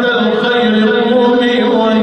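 A man chanting in long held notes.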